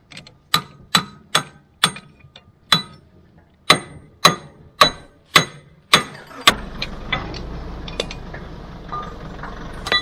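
A sledgehammer strikes a steel pin or bolt on a bulldozer's blade arm about ten times, roughly two blows a second, each with a sharp metallic ring, knocking rusted fittings loose to take the blade off. From a little past halfway a steady low rushing noise sets in, with a few small knocks.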